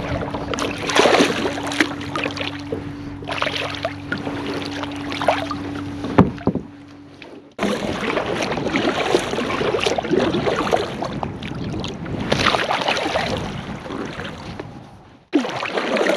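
Kayak paddle strokes in the water: the blade dipping and splashing, with water dripping and swishing along the hull, swelling every couple of seconds. A steady low hum runs under the first half. The sound cuts off abruptly about seven and a half seconds in and again near the end.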